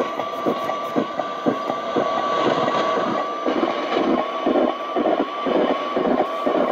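Realistic DX-60 shortwave receiver playing through its own speaker while tuned between stations: dense crackling static, with a steady whistle that wavers in a regular pattern.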